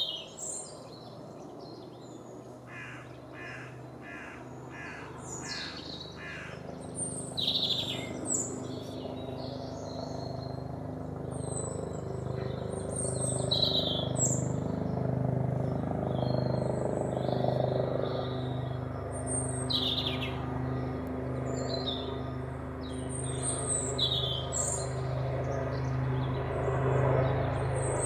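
European robin singing short, varied, high warbling phrases with pauses between them. Under it, the low drone of an approaching helicopter grows louder from a few seconds in.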